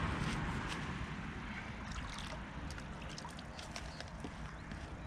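Damp, crumbly groundbait being worked by hand in a bowl, giving a scatter of small crackles and ticks from about two seconds in. Under it a low rumble fades away over the first couple of seconds.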